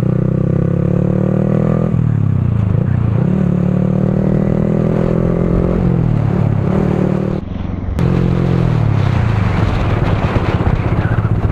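Yamaha R15's single-cylinder engine under way, revs climbing in runs that break off about two and six seconds in, with a brief dip about seven and a half seconds in. Wind hiss on the helmet-mounted microphone grows in the second half.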